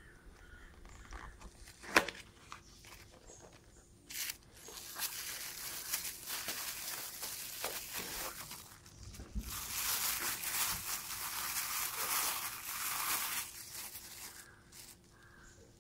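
Cardboard box handled and opened, with one sharp click about two seconds in, then a clear plastic bag crinkling and rustling as the packed item is pulled out and unwrapped, loudest a little past the middle.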